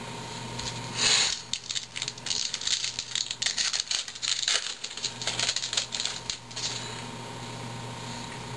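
A Topps baseball card pack's wrapper torn open with one sharp rip about a second in, followed by a few seconds of crinkling and rustling of the wrapper and cards.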